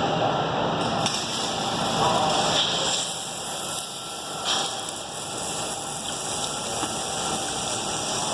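Hot, freshly welded steel hissing and sizzling as it is quenched in water, the hiss coming in about a second in. A short knock about four and a half seconds in.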